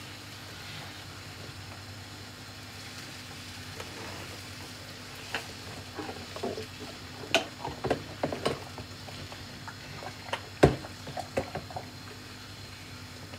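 Pans of mushrooms and onions in beef stock cooking on a gas hob with a steady low hiss. From about five seconds in, a silicone spatula stirs the pans, giving scattered scrapes and light knocks against the pan; the loudest knock comes about ten and a half seconds in.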